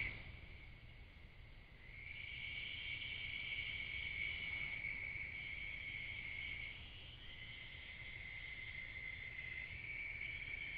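Faint, high-pitched trilling of night-calling animals. It starts about two seconds in, breaks off briefly in the middle and resumes, with a second trill at a slightly different pitch joining near the end.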